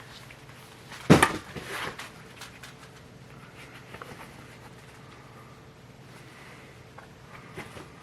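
Handling of a replica wrestling championship belt: one sharp knock about a second in, followed by a brief rustle and a few light clicks over a faint steady hum.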